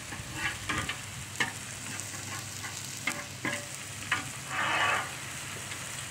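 Burgers, hot dogs and bacon sizzling steadily on a Blackstone flat-top steel griddle, with short clicks and taps of a metal spatula on the cooking surface and one longer scrape just before five seconds in.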